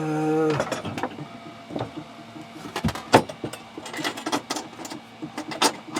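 A brief wordless hum of a man's voice, then scattered clicks and knocks of tools and small objects being handled on a workbench.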